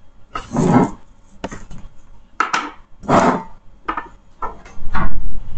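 Hands handling the programmer adapter, its ribbon wires and the soldering tools on a desk: irregular knocks, taps and rustles, the loudest about five seconds in.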